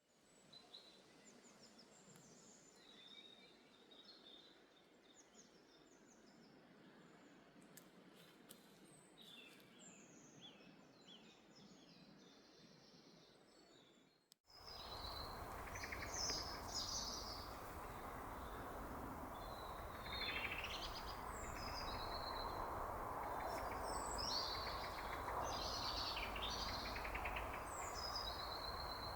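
Wild birds calling and singing in short high chirps and trills. A little under halfway through the sound cuts abruptly to a louder stretch, with a steady rushing background under more frequent bird calls.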